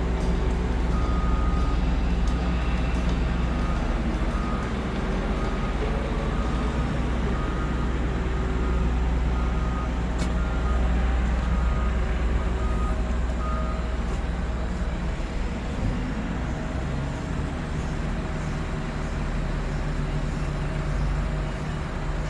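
Heavy diesel machinery running steadily at a low drone, with a vehicle reversing alarm beeping evenly about once a second for the first half, then stopping.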